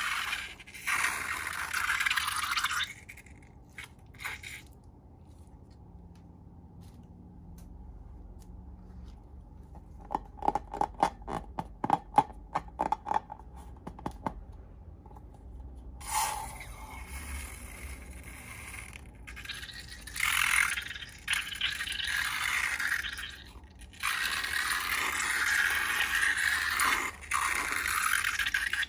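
Scratchy scraping and rustling from slime-making handwork, in long stretches with a quiet gap. In the middle comes a run of quick, sharp clicks or pops lasting a few seconds.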